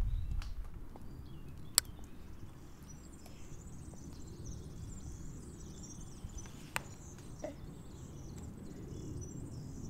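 Outdoor garden ambience: a steady low rumble with faint high chirping, broken by two sharp clicks, one about two seconds in and a weaker one near seven seconds.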